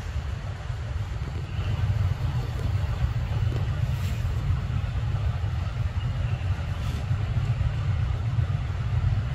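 A steady low rumble with no clear pitch, and a couple of faint clicks.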